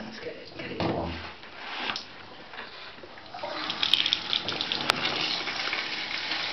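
Handheld shower spraying water onto a puppy in a plastic tub. A steady hiss of running water comes on about three and a half seconds in, with water splashing before it and two sharp clicks soon after it starts.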